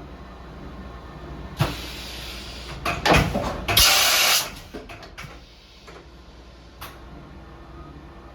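Hardinge Bridgeport 1000 XP3 CNC vertical machining center running with a low steady hum. About one and a half seconds in there is a sharp clunk, then loud hissing bursts from about three to four and a half seconds in, followed by a few light clicks.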